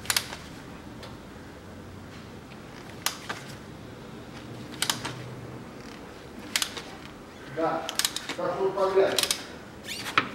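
Oil filter being unscrewed with a hand tool: single sharp metal clicks a second or two apart, then a busier stretch of clicking and rubbing near the end as the filter comes free.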